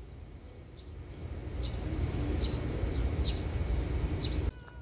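A low engine-like rumble swells in the background while a bird gives a short, high chirp about once a second, five times in all. The sound cuts off suddenly near the end.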